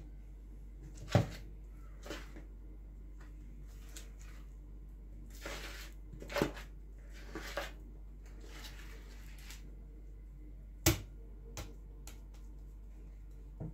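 A spoon spreading thick cake batter in a foil baking tin: short soft scrapes, with a few sharp clicks. The loudest click comes about a second in and another near the end.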